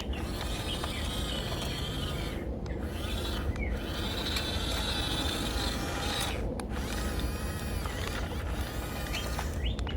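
Small electric drive motor and gearbox of a toy remote-control bulldozer running with a steady whine and rattle, stopping briefly a few times as the controls are let go.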